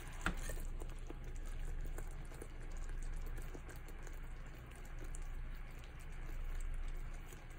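Butter, brown sugar and rum sauce with sliced bananas bubbling and sizzling in a pan on the burner, a steady fine crackle of small pops, with a single sharper click just after the start.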